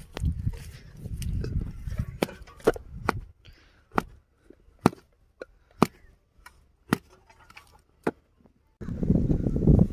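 A hoe's metal blade chopping into hard, dry soil: sharp single strikes about once a second, with a low rumble over the first few seconds and again near the end.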